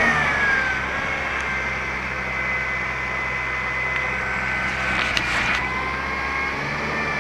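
A municipal sanitation truck's engine running steadily in the street, with a high steady whine over the drone and a brief clatter about five seconds in.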